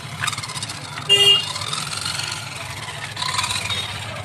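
Small electric motor and gearbox of a toy RC monster truck running, a steady buzzy whir. A short higher tone sounds about a second in.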